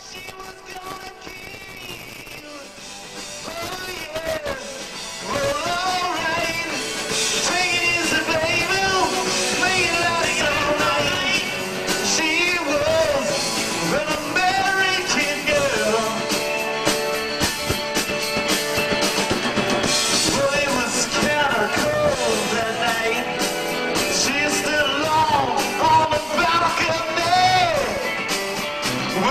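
Live rock band playing electric guitar and drums, with singing. It starts softer and comes in at full volume about five seconds in.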